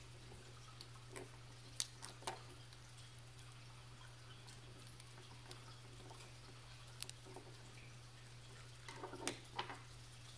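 Small sharp clicks and taps of the metal battery retainer plate being fitted and pressed into a Timex digital watch module: a few scattered clicks, then a quick cluster near the end, the loudest of them. A steady low hum lies underneath.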